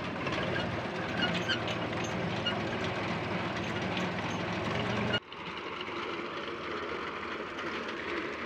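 Eicher tractor's diesel engine running steadily while its front-mounted reaper cuts standing wheat. The sound breaks off abruptly about five seconds in and carries straight on.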